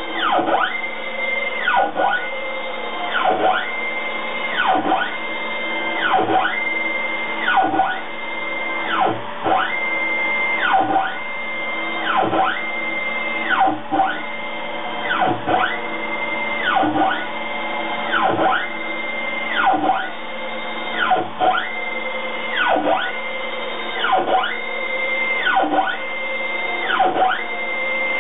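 Stepper motors of a hobby CNC machine, driven by an H1 controller, moving back and forth. Each move is a whine that rises in pitch, holds, then falls again as the motors accelerate, run at speed and decelerate, repeating about every two seconds.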